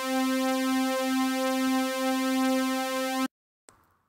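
A single steady, buzzy synthesizer note, the test tone without DC offset, briefly dipping about once a second and cutting off abruptly about three seconds in.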